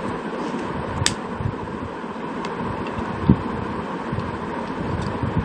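Light clicks and a knock from plastic extension-socket parts being handled, over a steady hiss with a faint even tone.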